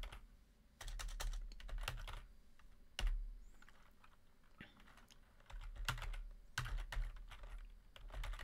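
Typing on a computer keyboard: quick runs of key clicks in a few bursts, with short pauses between them.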